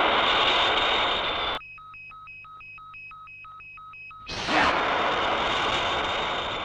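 Tokusatsu sound effects of Ultraman flying: a loud rushing sound, cut off about a second and a half in by steady electronic beeping of about three beeps a second at one pitch, after which the loud rush returns.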